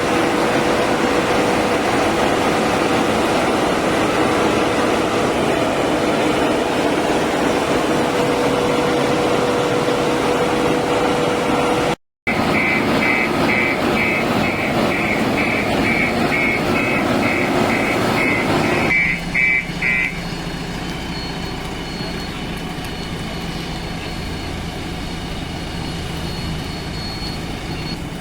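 JCB 3DX backhoe loader's diesel engine running steadily. About halfway through, a high electronic beeping repeats about twice a second for several seconds, and then the engine settles to a quieter idle.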